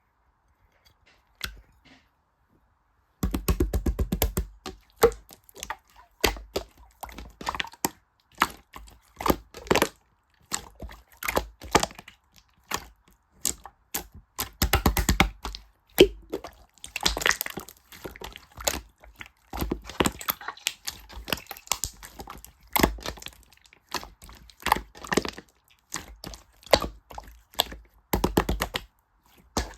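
Rapid, irregular sharp clicks and taps in quick clusters, starting about three seconds in after near silence.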